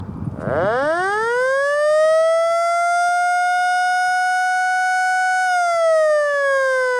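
Federal Signal Model L 8-port electromechanical siren winding up from a low growl to a steady high wail, holding it for a few seconds, then sliding down in pitch as it starts to wind down: the first rise and fall of a wailing attack signal.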